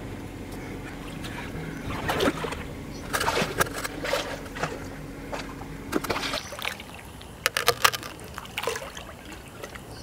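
Swimming-pool water sloshing and splashing in irregular bursts as a person wades and ducks under the surface. A faint low hum underneath stops abruptly about six seconds in.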